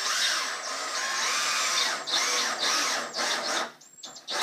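Power drill driving a screw into a wooden block, the motor speeding up and slowing several times as the trigger is worked. It stops a little before the end, with a short final burst.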